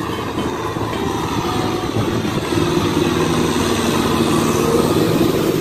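Kubota M6040SU tractor's diesel engine running steadily under load while tilling a flooded rice paddy. It grows louder in the second half as the tractor comes close.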